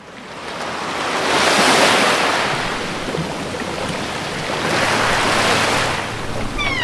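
Sea waves breaking: a rushing surf noise that fades in and swells twice, each surge rising and falling over about a second. Near the end, a pitched sound sweeps down as music begins.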